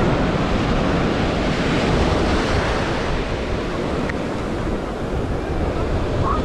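Ocean surf washing up the sand at the shoreline in a steady rush, with wind buffeting the microphone.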